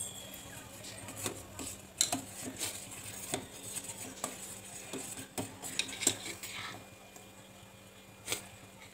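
Steel ladle scraping and clinking against the bottom and sides of a stainless steel pot as a milk mixture is stirred, in irregular knocks that come thickly for about seven seconds, then one more near the end. The stirring is kept up so the milk does not stick to the bottom of the pot.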